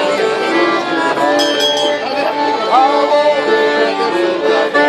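Live Russian folk music: an accordion playing together with a string instrument, a lively traditional tune.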